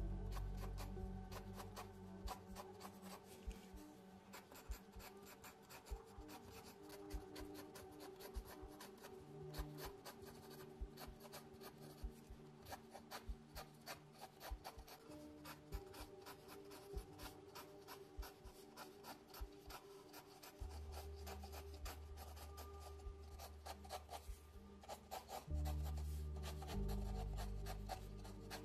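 Mechanical pencil scratching across sketch paper in many quick, short strokes, over soft background music with sustained low notes.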